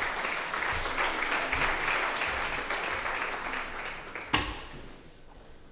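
Audience applauding, the clapping thinning out and fading away over about four seconds, with a single knock near the end.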